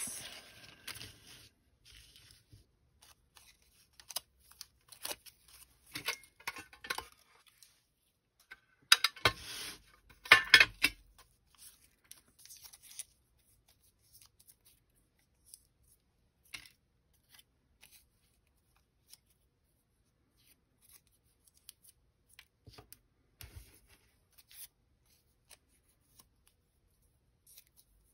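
Folded slips of paper being handled and unfolded by hand: short, scattered rustles and small clicks, loudest in a cluster about nine to eleven seconds in.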